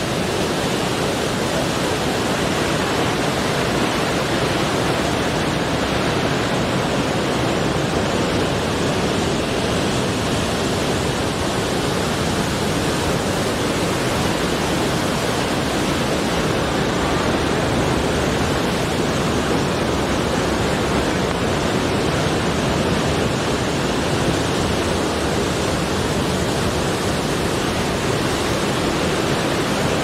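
Ocean surf breaking over a rocky shore: a loud, steady rush of churning water, with no single crash standing out.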